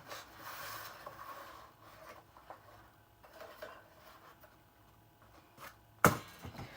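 Faint rustling and handling noise as small objects are picked up and moved about, with scattered light ticks. A single sharp knock or click comes about six seconds in and is the loudest sound.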